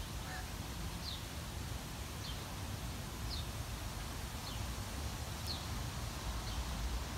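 A bird chirping repeatedly, a short falling note about once a second, over a steady low outdoor rumble.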